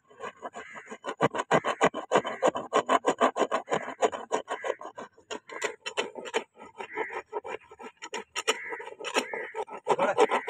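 A long flat paring blade scraped in quick repeated strokes across a horse's hoof wall, shaving off horn, with a few brief pauses between runs of strokes.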